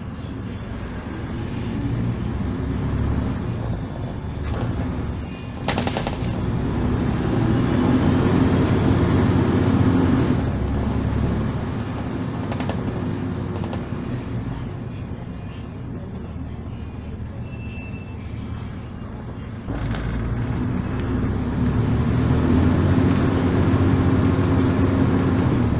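Volvo Super Olympian double-decker bus heard from inside the cabin, its diesel engine pulling under load. The engine note swells twice as the bus accelerates, easing in between. Two sharp knocks, about 6 s and 20 s in.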